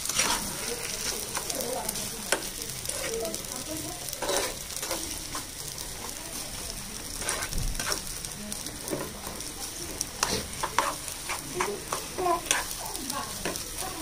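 Mashed potato frying in oil in a pan, with a steady sizzle, while a metal spatula stirs and presses it, scraping and tapping against the pan at irregular moments.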